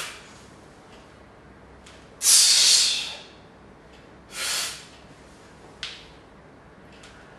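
Forceful breaths of a man bracing under two kettlebells in a front squat: one long, loud breath about two seconds in, a shorter one around four and a half seconds, and a brief sharp one near six seconds at the bottom of the squat. These are the deep breaths he uses to keep his trunk tight and pressurized under the load.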